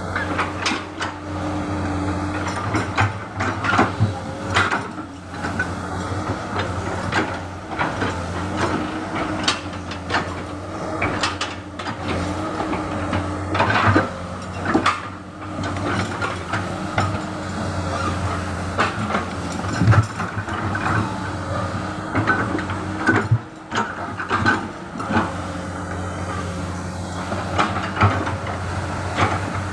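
Komatsu hydraulic excavator's diesel engine running steadily under work, with frequent short knocks and clanks throughout.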